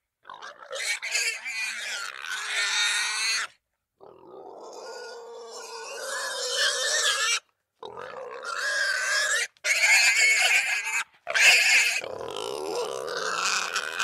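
Boar grunting and squealing in about five stretches of one to three seconds, each cutting off abruptly into a short silence.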